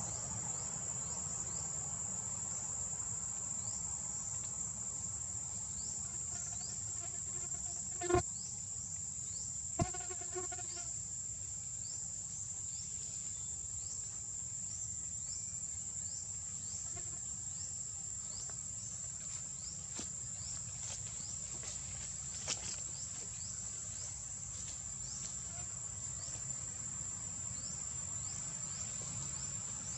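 Forest insects, crickets or cicadas, keep up a steady high-pitched drone with repeated short chirps. Twice, about two seconds apart, a brief pitched animal call comes with a sharp knock.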